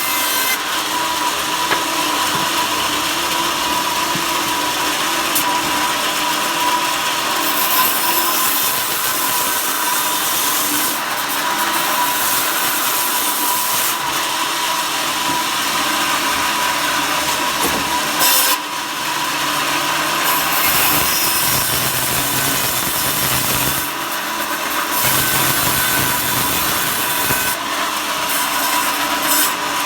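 A power saw cutting wood steadily, a continuous rasping noise over a steady machine whine, dipping briefly twice.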